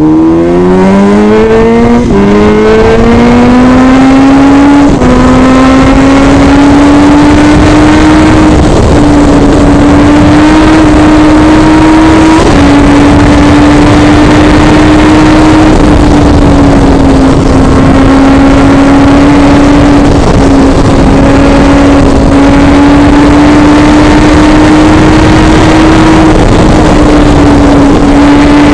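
Motorcycle engine pulling hard through the gears: its pitch climbs and drops back at about three upshifts in the first five seconds, then holds at high revs at high speed. Heavy wind rush is on the microphone inside the rider's helmet.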